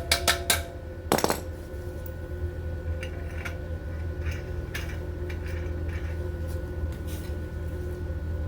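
Small metal parts clinking and clattering as they are handled: a quick run of sharp clinks at the start and another about a second in, then lighter taps, over a steady low hum.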